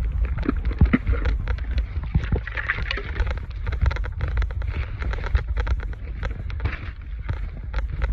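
Footsteps crunching and snapping through dry leaves, twigs and brush in irregular crackles, with a steady low rumble of wind buffeting the microphone.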